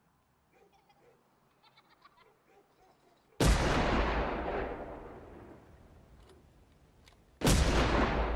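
Two loud gunshots about four seconds apart, each starting suddenly and dying away in a long echoing tail of a few seconds. Before the first shot there are only faint sounds.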